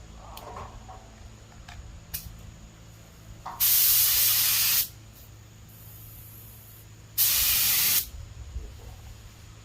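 Cheap Harbor Freight air spray gun spraying paint in two short bursts, one a little over a second long and one just under a second, each a loud hiss that starts and stops sharply with the trigger.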